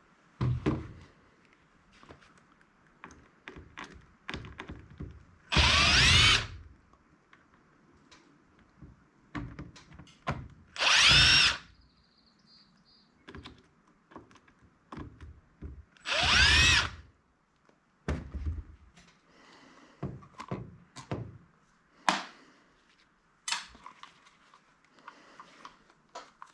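Power drill backing screws out of a handheld scanner's case: three whining bursts of about a second each, with short clicks and knocks of handling the plastic parts and screws between them.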